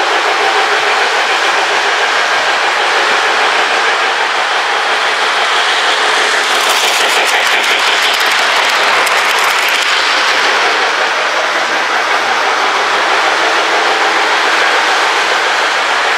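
Lionel electric toy train running on metal track: a steady whir of motor and wheels. From about six to ten seconds in, rapid clicking of wheels over the track joints as it passes close by.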